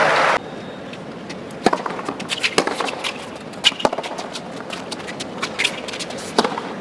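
A hard-court tennis rally: sharp racket-on-ball hits about a second apart, with smaller scuffs and clicks from the players' footwork in between.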